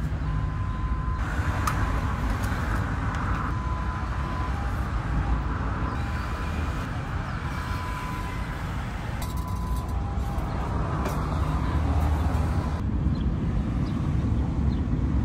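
Steady low rumble of outdoor background noise, like traffic, with a faint thin tone that comes and goes.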